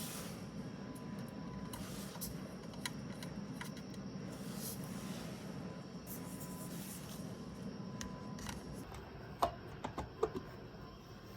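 Mechanical keyboard parts being handled, giving scattered small clicks over a steady low hum, then a quick run of sharper clicks, some with a short ringing ping, near the end.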